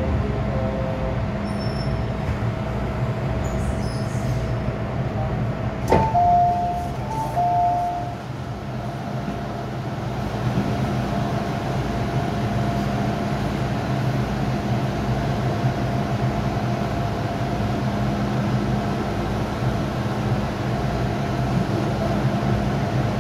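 Inside an MTR M-Train car: the train's equipment gives a steady hum with a few held tones. About six seconds in there is a sharp click, then a two-note chime that sounds twice.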